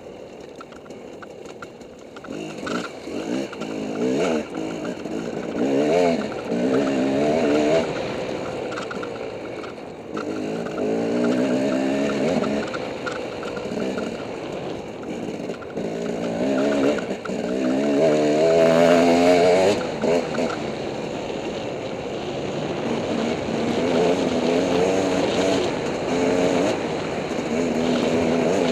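Dirt bike engine accelerating along a trail, its pitch climbing through the gears in several pulls, with easing off between them.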